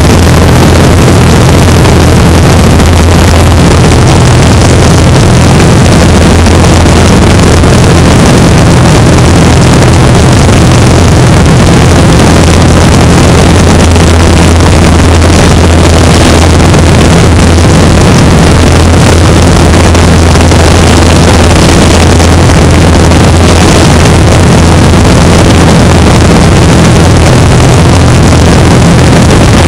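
Great Lakes biplane's piston engine and propeller droning steadily in level cruise, with a steady low pitch under a heavy rush of wind noise on the exposed camera microphone.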